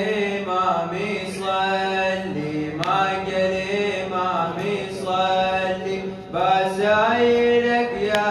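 A young man's solo voice chanting a Shia lament (a radood's latmiya) into a microphone, unaccompanied, in long held notes that slide between pitches, pausing briefly twice for breath.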